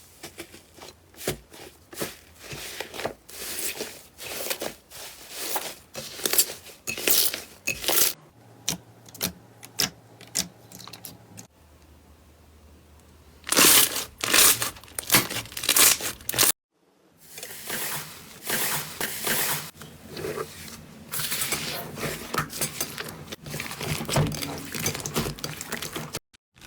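Slime being squeezed, poked and stretched by hand, giving many irregular sharp crackles and pops. A louder run of pops comes about halfway through, and the sound cuts out briefly twice as one clip gives way to another.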